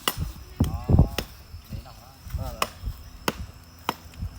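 Hammer and chisel striking stone: a run of sharp, separate blows, roughly one every half second to second, as the stone is cut and shaped by hand.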